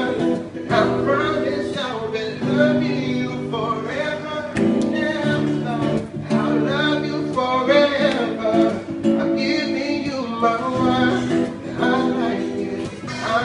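A man singing while strumming an acoustic guitar, the chords changing every second or two under the vocal line.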